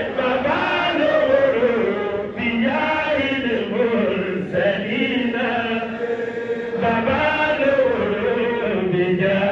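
A man chanting into a microphone: one amplified voice in long melodic phrases that rise and fall, with short breaths between them.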